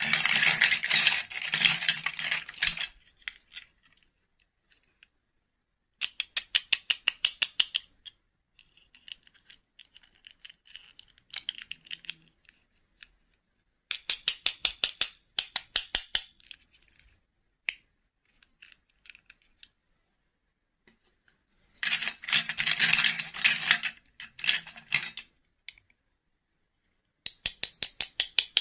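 Small plastic doll figures and their clip-on plastic dresses clattering and clicking against each other and the bowl as they are handled. The sound comes in several bursts of rapid clicking, with quiet stretches between them.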